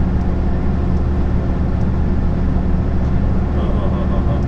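Inside a heavy truck's cab at steady motorway cruising speed: a constant low drone of the diesel engine with road and tyre noise.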